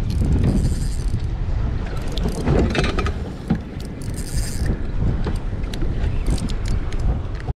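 Shimano Sedona 5000 spinning reel being worked, its gears whirring in short spells about half a second in and again about four seconds in, over a steady wind rumble on the microphone.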